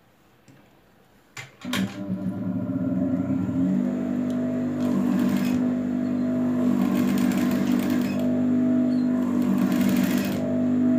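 JUKI industrial sewing machine starting with a click about a second and a half in, then running steadily as it stitches through fabric.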